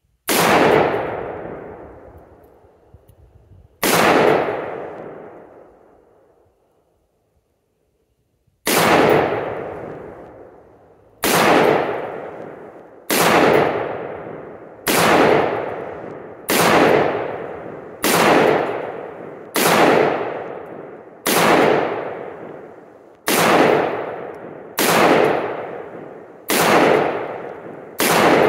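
Custom-built AR-15 rifle fired semi-automatically, fourteen single shots: the first three several seconds apart, the rest steady at about one every 1.7 seconds, each shot trailing off in a long echo. The run of shots is fire at a paper target to sight in (zero) the rifle.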